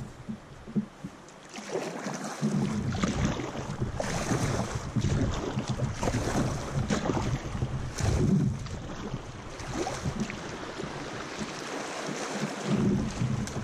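Water rushing and splashing around a kayak being paddled through moving water, with wind buffeting the microphone; it grows louder and busier about two seconds in.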